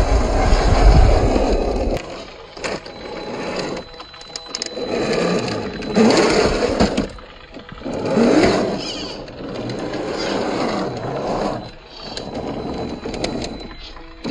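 Brushed 540-size 35-turn electric motor and gear drivetrain of an Axial SCX10 III 1/10-scale RC rock crawler whining in repeated swells as it crawls over rock, pitch rising and falling with the throttle, with a few clicks of tyres and chassis on stone. For about the first two seconds, wind rumbles on the microphone, which is the loudest sound.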